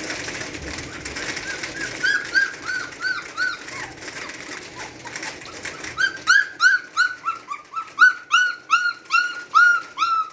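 Standard Poodle puppy whining in a run of short, high, rising-and-falling cries, at first sparse, then about three a second and louder from about six seconds in. A sign of distress; the owner can't tell whether the puppy wants its mother or is scared by the thunderstorm.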